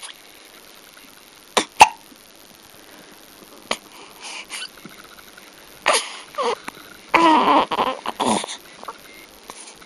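Baby hiccupping: short, sharp hiccups come irregularly, the loudest two close together about a second and a half in. A longer pitched vocal sound from the baby follows from about seven to eight and a half seconds in.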